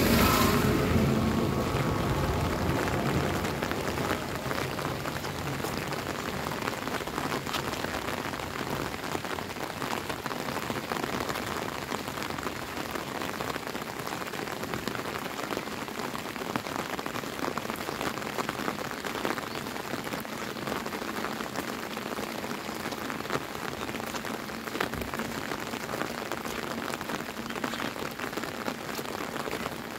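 Steady rain falling, an even hiss scattered with the small ticks of raindrops. A passing three-wheeled auto-rickshaw's engine fades away over the first couple of seconds.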